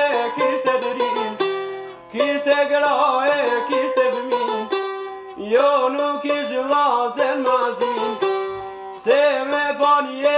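Albanian çifteli and sharki, long-necked plucked lutes, playing a folk melody in quick plucked notes over a steady drone. The playing comes in phrases that ease off briefly about two seconds in, again about five seconds in, and near the end.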